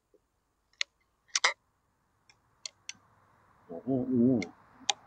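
A series of sharp metallic clicks as the air rifle's action is worked and a pellet loaded, the loudest a quick double click about a second and a half in. A short low hum from a person's voice comes near the end.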